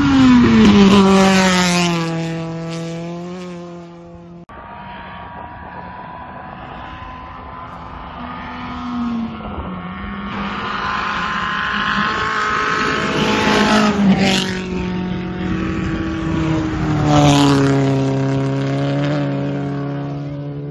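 Rally cars at racing speed on a gravel stage: a loud engine pass-by whose pitch drops as the car goes away, then after a cut more cars approach and pass, engines rising and falling in pitch through the gears.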